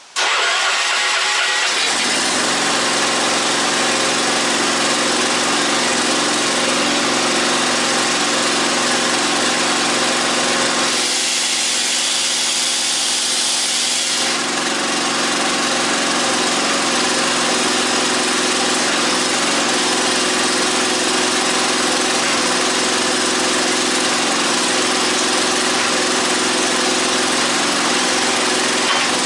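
Homemade firewood processor's hydraulic power unit starts up abruptly and runs steadily at a constant pitch. About eleven seconds in, its sound changes for about three seconds, then settles back.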